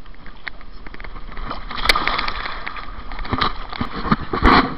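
Water splashing and sloshing in a river around a bathing elephant, with sharper splashes about two seconds in, again past three seconds and near the end.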